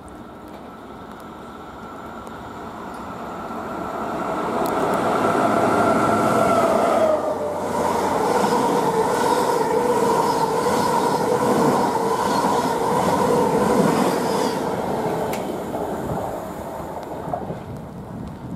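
Electric passenger train of Mk3 coaches running through the station at speed. Its noise builds as it approaches, and its tones drop in pitch as the front passes about seven seconds in. A steady rush of wheels on rail follows along the coaches, then fades away near the end.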